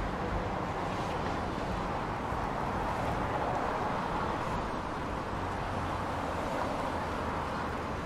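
City street ambience: a steady wash of light vehicle traffic, engine and tyre noise with a low rumble, easing slightly toward the end.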